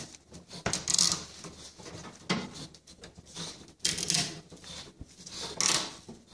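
Plastic zip tie being pulled tight around a nebulizer fitting on a crate door, its ratchet clicking, with plastic parts rattling under the hands: three short rasping bursts, about one, four and nearly six seconds in.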